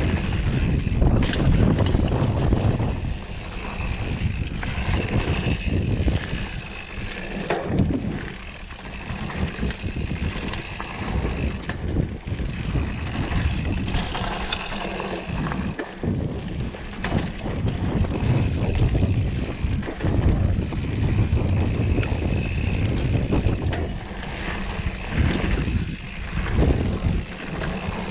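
Mountain bike riding along a dirt trail: wind rushing over the camera microphone and tyres rolling on dirt, with frequent short knocks and rattles from the bike over bumps. The rush rises and falls with speed, dipping briefly a couple of times.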